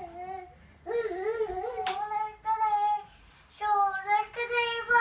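A young child singing wordlessly in a high voice, holding long wavering notes in short phrases with brief pauses between them.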